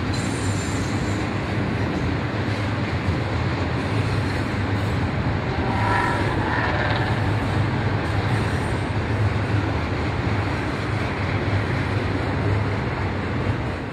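Double-stack container freight trains rolling by: a steady rumble of wheels on rail, with the tail of one train passing at ground level while another rolls across the elevated steel flyover. A brief high tone rises out of the rumble about six seconds in.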